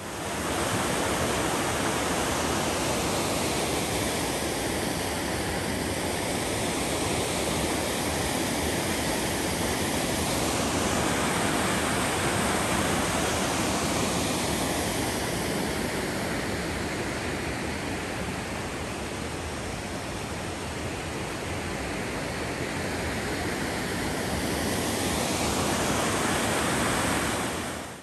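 Partly frozen waterfall: a steady rush of falling water whose tone shifts slowly up and down.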